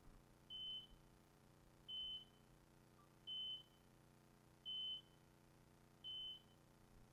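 A hunting dog's beeper collar in point mode: a single short high beep repeating about every second and a half, five times. It signals that the English setter is standing on point.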